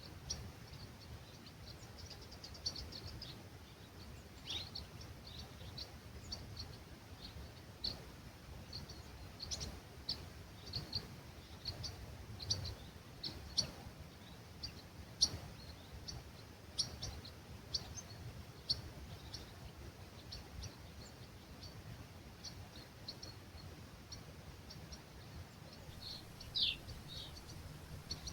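Small birds chirping at dawn, many short high calls in an irregular stream, with a few louder downward-sweeping calls near the end. Under them, a faint low rush of breeze through the olive grove.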